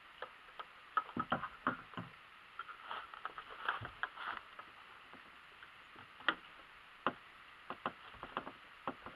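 Irregular light clicks and knocks from a Hi-Point 995TS 9mm carbine being handled on a shooting rest as the shooter settles his grip; no shot is fired.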